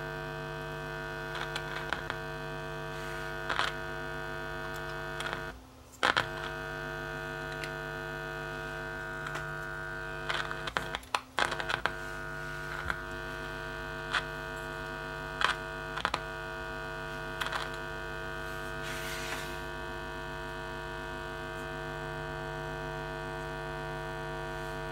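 The woofer of a Paradigm Atom bookshelf speaker, driven by a test tone from an oscillator, makes a steady low hum with its cone moving about a quarter of an inch. This keeps the cone centered while the glue on its new foam surround sets. The hum cuts out briefly twice, about 6 and 11 seconds in, and there are faint taps as fingers press along the surround.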